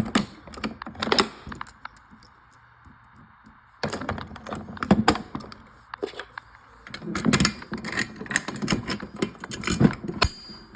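Irregular clicks and knocks from fire alarm pull stations being handled and worked, with a pause of about two seconds before the clicking resumes and grows busier.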